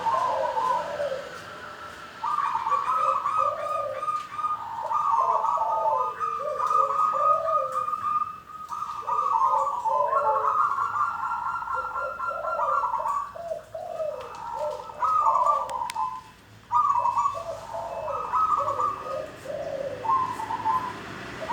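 Zebra dove (perkutut) singing: repeated phrases of quick, rolling coo notes, with short pauses between phrases.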